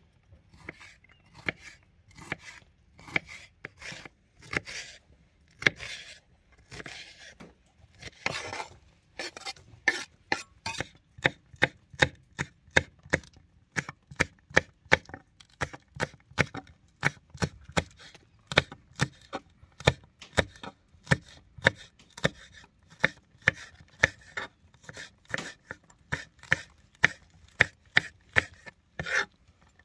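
Kitchen knife slicing red bell pepper and green chili pepper on a wooden cutting board, each stroke a crisp cut ending in a knock of the blade on the board. The cuts are slow and uneven at first, then steady and quick, a few a second, from about nine seconds in.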